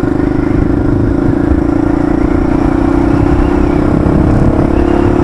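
Honda XLX 250R's single-cylinder four-stroke engine running under way at a steady, moderate speed, its note holding even.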